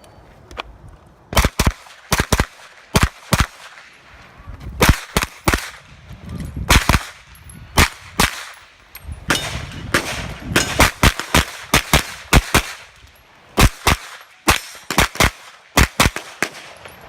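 A JP Rifles GMR-15 9mm pistol-caliber carbine fires dozens of fast shots in quick strings with short pauses between. Steel targets ring with the hits.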